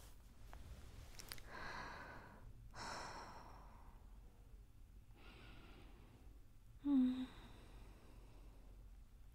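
A woman's soft, slow breathing close to the microphone: three long breaths, one of them a sigh about three seconds in, then a short hummed 'mm' about seven seconds in, the loudest sound. It is sleepy breathing as she drifts off to sleep.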